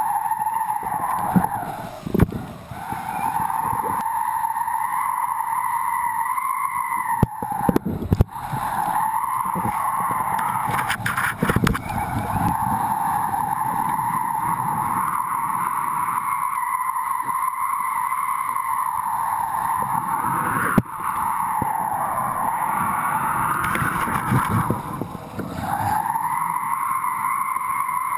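Kiteboard planing over choppy water: a steady rushing hiss of water and spray under the board, mixed with wind on the camera. It eases briefly about two, eight and twenty-five seconds in, and there are a few sharp knocks.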